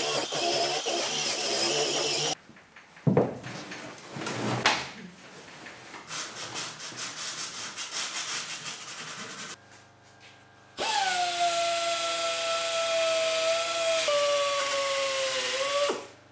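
A small grinder grinding rust off the car's steel frame, then a few seconds of hand sanding, scratchy and irregular. About eleven seconds in, a right-angle die grinder with an abrasive wheel starts whining and its pitch sags as it bears on the metal, dropping a step lower before it cuts off near the end.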